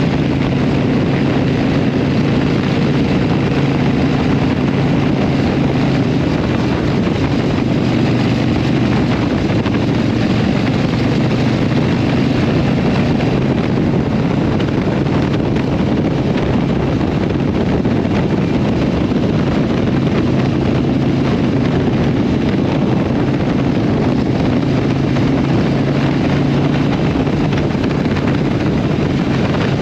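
Harley-Davidson Iron 883 Sportster's 883 cc V-twin through a Vance & Hines exhaust, running steadily at a road speed of just over 50 mph, with wind rushing over the microphone.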